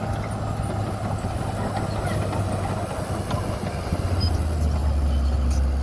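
Heavy construction machine's diesel engine running steadily with a low hum; about four seconds in the hum drops in pitch and grows louder.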